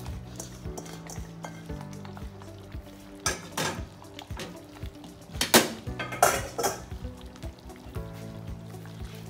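Metal kitchen utensils clanking and scraping against a stainless steel cooking pot in three short bursts around the middle, over soft background music.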